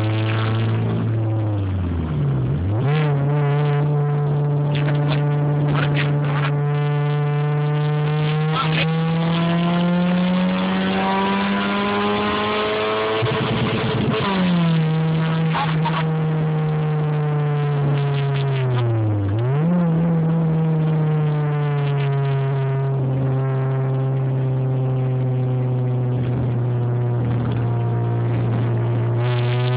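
A 2000 Toyota Avensis 2.0 four-cylinder engine with a loud exhaust, heard from inside the cabin while driving. The engine note climbs slowly under throttle and dips sharply with changes in engine speed about two seconds in, around fourteen seconds and near nineteen seconds.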